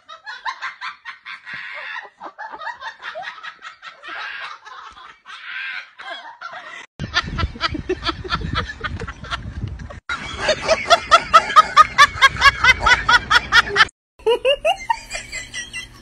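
People laughing: choppy giggling at first, then a loud, rapid run of ha-ha laughs, about four a second, that breaks off about two seconds before the end.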